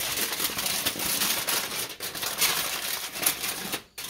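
Aluminum foil crinkling and rustling as it is folded and wrapped around a rack of pork ribs, with a brief drop-out near the end.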